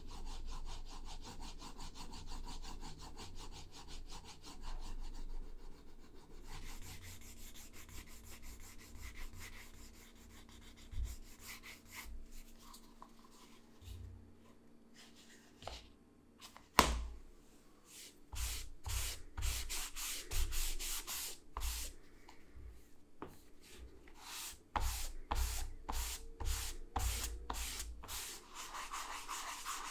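Leather being rubbed by hand: the edge of a leather sleeve is burnished with a wooden slicker and a cloth, a steady rubbing hiss. Later come quick back-and-forth cloth strokes, about two a second. One sharp knock falls a little past halfway.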